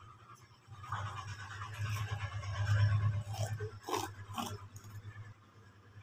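Masking tape being pulled off its roll and pressed along the edge of a cardboard cake board: a rasping, crackling peel lasting a few seconds over a low hum, with two sharp clicks about four seconds in.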